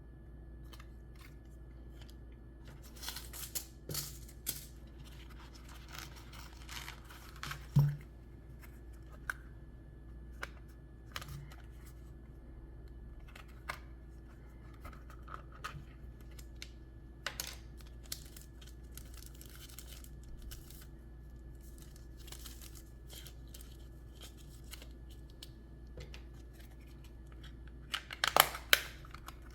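Hands handling the knife's packaging: scattered rustling, small clicks and taps, one louder knock about eight seconds in, and a burst of crinkling near the end.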